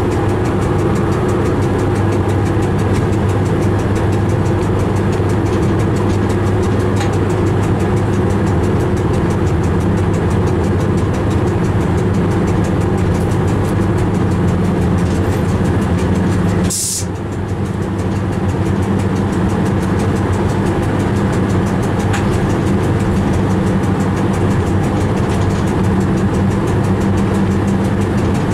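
Steady running noise of a train heard from inside the locomotive cab: a constant low hum over rolling noise. About two-thirds of the way through there is one brief, sharp hiss.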